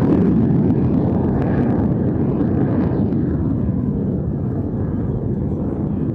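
A MiG-17 jet fighter's Klimov turbojet, heard as a loud, deep, steady rumble. Its higher hiss fades away about halfway through, while the low rumble carries on.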